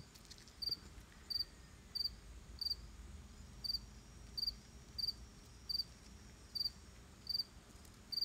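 A cricket chirping steadily, short high chirps repeating about three times every two seconds.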